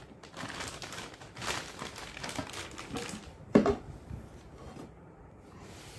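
Clear plastic wrapping crinkling as it is pulled off a new stainless steel kadhai, with one sharp knock about three and a half seconds in.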